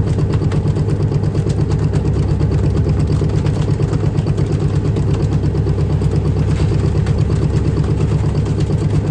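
Fishing boat's diesel engine running steadily with a fast, even throb.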